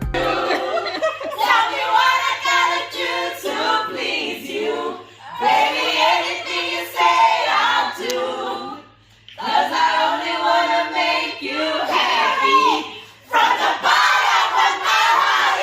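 Several voices singing together in phrases, with short breaks between them.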